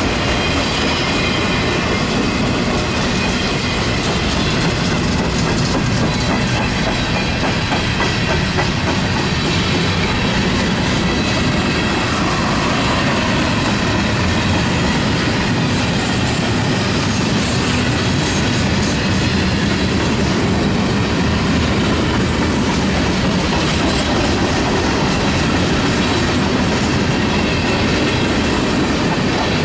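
Freight cars rolling past close by: a steady rumble and clatter of steel wheels on the rails, with faint thin high tones at times, going on without a break.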